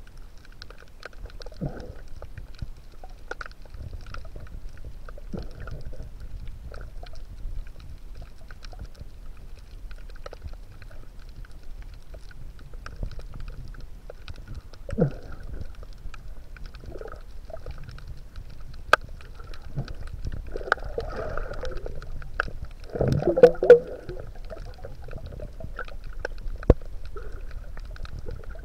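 Muffled underwater sound recorded by a camera in the sea: a steady low rumble with scattered clicks and crackles. There are a few louder gurgles, about 15 seconds in and again around 23 seconds in.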